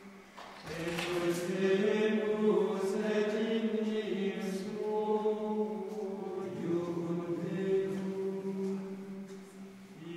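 Gregorian chant sung in unison by the Premonstratensian canons' men's voices, a slow melody of held notes that comes in about a second in.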